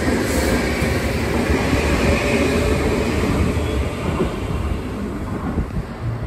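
JR West 323 series electric train running past a station platform: a steady rumble of wheels and running gear that eases off slightly after about four seconds.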